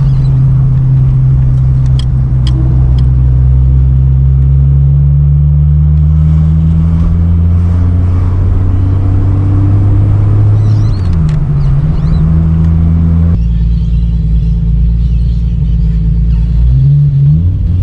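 Holden VL Turbo Commodore's turbocharged 3.0-litre straight-six running steadily while the car is driven, its note rising slowly, then dipping and recovering about eleven seconds in and again near the end. The tone changes abruptly about thirteen seconds in.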